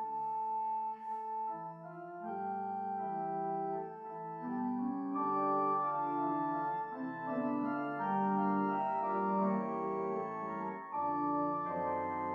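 Organ playing slow, held chords that change about once a second.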